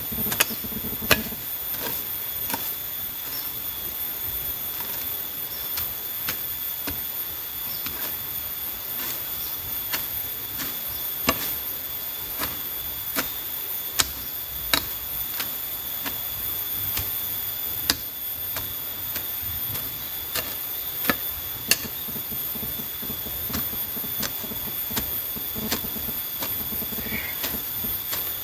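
A small hand hoe chopping into grass and soil in irregular sharp strikes, roughly one a second, as weeds are cleared around a young durian tree. A steady high-pitched whine runs behind it.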